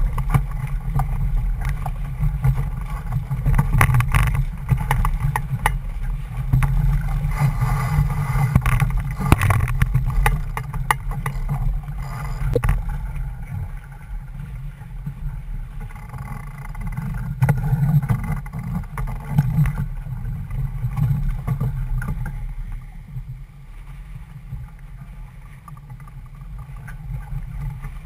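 Wind noise on the microphone and water rushing along the hull of a C&C 31 sailboat under way, with scattered knocks and rattles in the first half. It eases off for a few seconds near the end.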